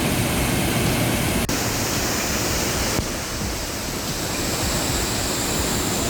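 Waterfall water rushing, a steady dense noise. It changes abruptly about one and a half seconds in and again at about three seconds.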